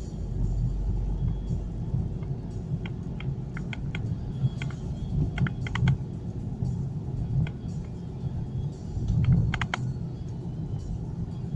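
Car rumble heard from inside a moving car: steady low engine and road noise, with scattered irregular clicks and light rattles, a cluster about halfway through and another near the end.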